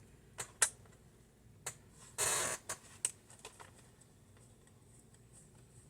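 A few light clicks and one short scraping rustle, from hands working on a laptop's plastic case with small tools.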